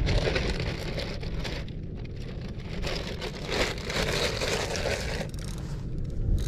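Steady rushing noise with heavy, gusty wind buffeting on the microphone, the rush swelling louder around the middle.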